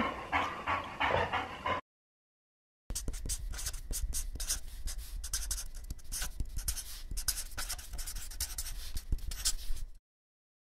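A pen scratching on paper in quick, dense strokes for about seven seconds, after a short burst of dog and handling noise and a second of silence.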